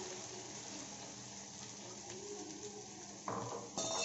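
Diced carrots sizzling in hot oil and ginger-garlic paste in a kadai while a steel spatula stirs them. Near the end the spatula scrapes, then knocks against the pan with a short metallic ring.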